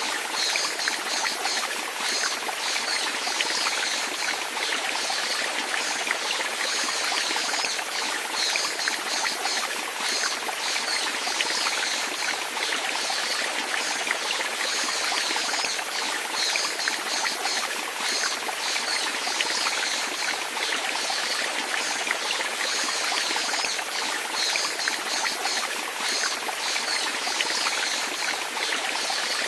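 Water flowing and trickling steadily, an unbroken splashing rush with no pauses.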